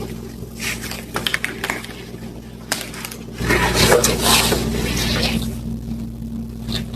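Household handling noises: clicks and scrapes of things being moved. About three and a half seconds in, a rush of running water starts and lasts a couple of seconds.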